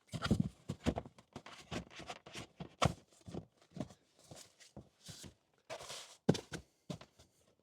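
Styrofoam storage tray being set back into place in a car's rear floor: a string of irregular light knocks and scraping rubs as it is handled and seated.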